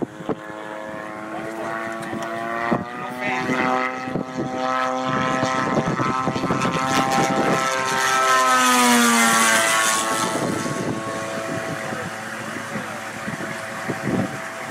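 RQ-7B Shadow drone's propeller engine buzzing on a low waveoff pass, the landing aborted. It grows louder, is loudest as it passes about eight seconds in with its pitch dropping, then fades away.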